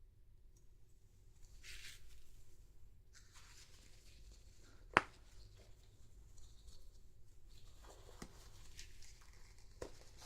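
Close, quiet handling of a toy doll and its packaging: soft rustling and tearing of packing material, with one sharp click about five seconds in and a few lighter clicks near the end.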